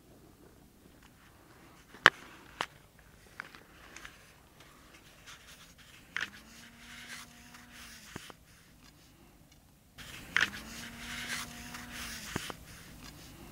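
Snaps, knocks and rustling in dry brush and twigs. Twice, a low steady tone about two seconds long bends up at the start and down at the end, with rustling around it; the second is a replay of the first.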